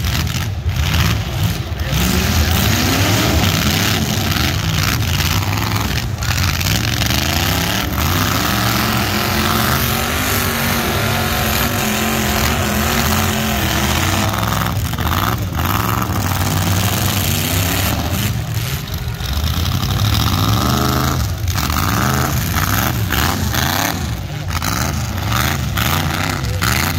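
Full-size demolition derby car engines revving hard, their pitch rising and falling again and again, with several sharp knocks.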